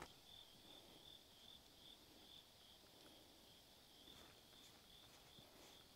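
Faint insect chirping: a thin, high, evenly pulsing trill that keeps going steadily, over quiet open-air background.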